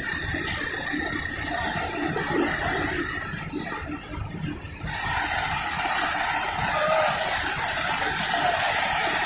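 Diesel engine of a mobile crane running, with heavy rattling and knocking. About five seconds in, a louder steady hiss joins it.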